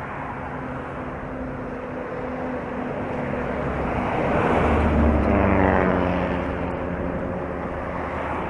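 A bus passing close by the bicycle: its engine drone and tyre noise swell to a peak about halfway through, and the engine note drops in pitch as it goes by, over steady traffic noise.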